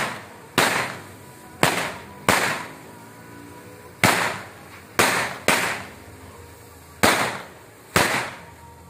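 A braided string of firecrackers going off: about eight loud, sharp bangs at uneven intervals, each dying away over about half a second.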